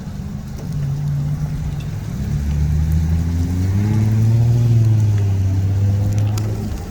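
A vehicle engine running with a low, steady hum; its pitch rises slightly and it grows louder around the middle, then settles back near the end.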